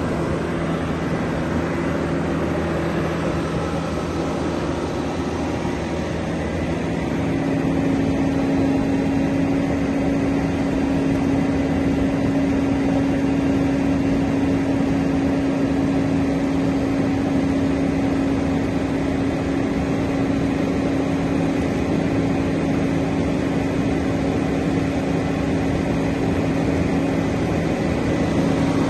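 Diesel engine of a CAT PM-102K cold milling machine running steadily, with a constant droning tone. It dips slightly about five seconds in, and about seven seconds in a stronger steady tone sets in and holds.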